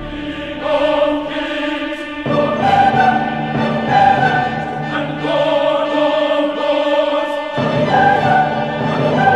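Classical-style choral music: a choir singing long held notes that change about once a second.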